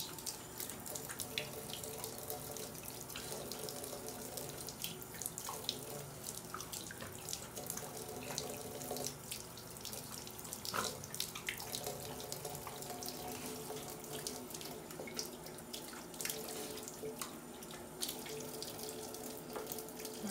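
Bathtub spout running a thin steady stream of water onto the tub floor, with small irregular splashes and clicks as a Rottweiler puppy laps at the falling water.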